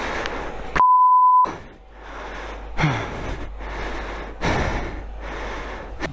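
A censor bleep, a steady 1 kHz tone lasting about two-thirds of a second, blanks out a word about a second in. Around it comes heavy, hard breathing in slow swells, with a short falling groan near the middle.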